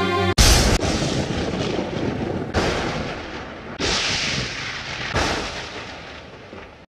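Four loud crashing booms spread over about five seconds, each rumbling and dying away: a dramatic film sound effect. The background music cuts off just before the first boom.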